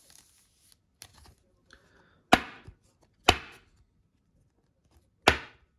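A clear plastic one-touch trading card holder, with a card inside, snapping shut with a big noise. The loud sharp clacks come two about a second apart, then a third two seconds later, over faint rustle of handling.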